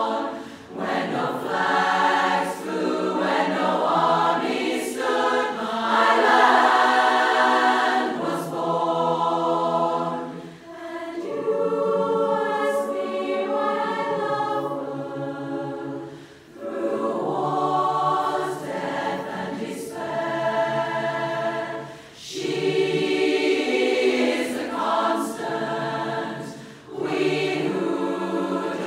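Large women's barbershop chorus singing a cappella in close harmony, in long sustained phrases broken by short breaks for breath.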